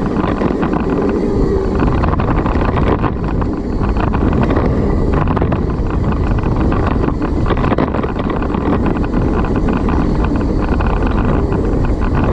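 Wind rushing over the microphone of a camera riding along on a mountain bike, with a constant rattle and clatter from the bike and tyres over rough dirt trail.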